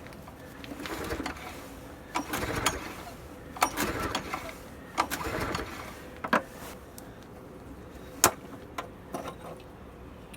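Recoil starter of a Subaru SG550 portable generator pulled four times in quick succession without the engine catching, a sign of the engine refusing to start; a few sharp clicks follow.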